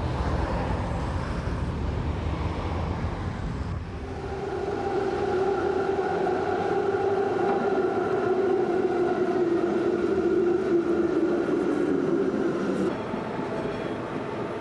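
Low rumble of road traffic passing, then, after about four seconds, an electric tram's traction motors whining as it runs along the street. The whine sinks slightly in pitch and falls away near the end.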